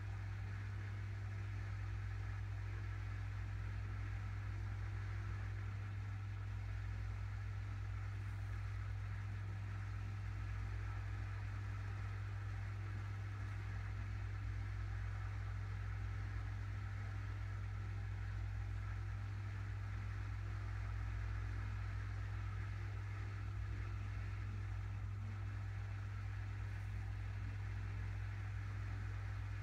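Steady low hum with a faint even hiss, unchanging throughout: room noise from an electrical or mechanical source.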